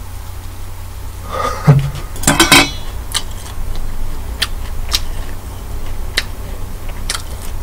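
Shell of a large king black tiger prawn crackling and snapping as it is twisted and pulled apart by hand. A louder crunching burst comes about two seconds in, followed by scattered sharp clicks, over a low steady hum.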